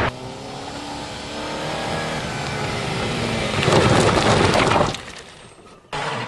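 A car engine approaching, its note rising and growing louder, then passing close with tyre noise about four seconds in and fading away. A brief sudden sound cuts in just before the end.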